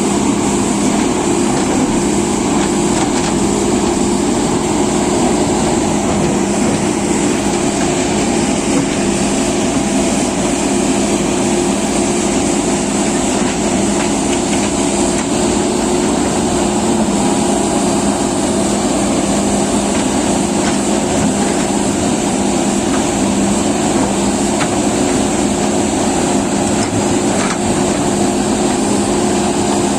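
JCB excavator's diesel engine running steadily, with an even hum.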